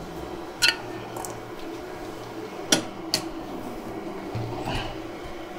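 A few sharp clicks and knocks of small tools and parts being handled on an electronics repair bench, over a steady low hum of bench equipment.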